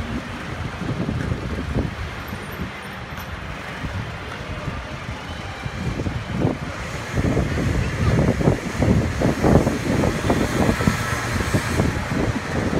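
City street traffic: a low, steady rumble of vehicle engines that swells and grows busier about seven seconds in, as traffic pulls away.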